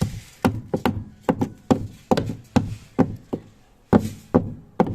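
Rapid, uneven series of sharp taps and knocks, about three a second: a broken part inside a semi-automatic washing machine's spin dryer being worked loose with pliers.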